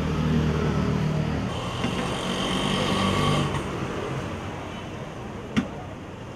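Road traffic: a motor vehicle's engine running close by, fading after about three and a half seconds. A single sharp click comes near the end.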